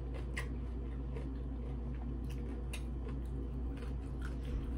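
A person chewing food, with a few faint clicks, over a steady low hum.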